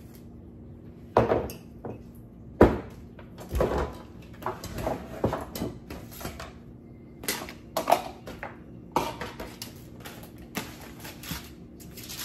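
Kitchen clatter as a plastic cutting board and utensils are set out on the counter: a string of irregular knocks and clacks, the sharpest about 1 and 2.5 seconds in.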